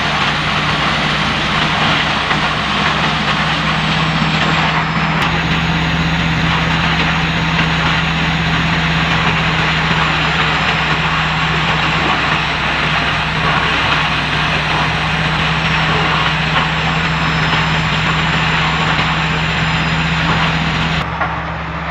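Heavy-duty wood chipping machine running, a steady low hum under a dense grinding noise. The sound shifts abruptly about five seconds in and again near the end.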